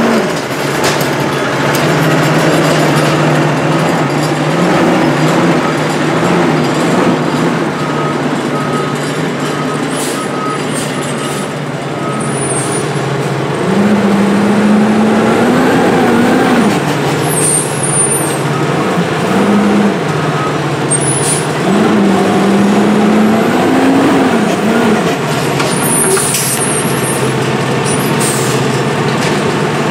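Diesel engine of a Condor refuse truck with an Amrep automated side-loader body, running at a steady idle with a repeated beep for the first dozen seconds. It then revs several times as the truck pulls away, the pitch rising and falling, with short hisses of air.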